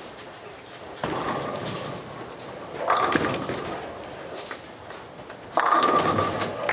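Bowling ball landing on the lane and rolling, then a crash of pins about three seconds in; another loud pin crash, with ringing, comes near the end.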